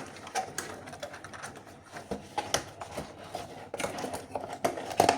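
Irregular clicks, taps and light rustling of a boxed wireless keyboard and its packaging being handled, a few sharper knocks near the end.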